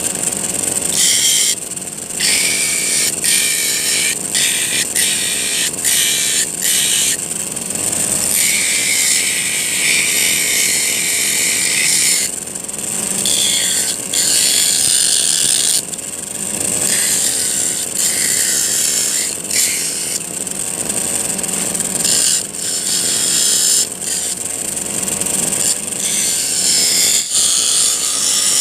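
Steel file being ground on an abrasive disc driven by a brush-cutter engine, a loud grinding hiss that cuts in and out every few seconds as the steel is pressed on and lifted.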